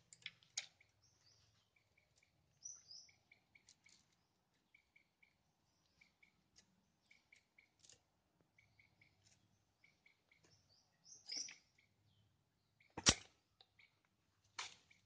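Faint, scattered light clicks and taps of hand work on an Ogawa chainsaw's bar and chain, with one sharp click about 13 seconds in. Small birds chirp faintly in the background.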